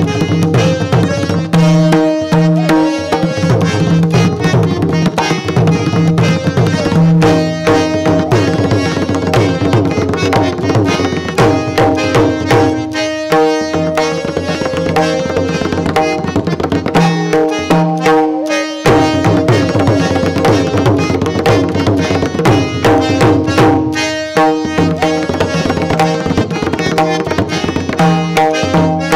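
Mardala, the two-headed barrel drum of Odissi music, played in fast, dense strokes over a held, repeating melodic line, with short breaks between phrases.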